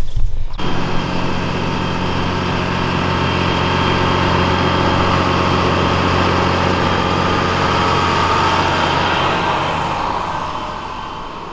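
A large vehicle engine running at a steady speed close by, cutting in about half a second in, growing a little louder and then fading away near the end.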